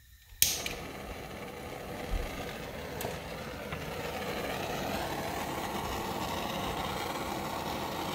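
Handheld gas soldering torch lit with a sharp click about half a second in, then its flame hissing steadily while it heats hard-solder joints on a jewelry piece.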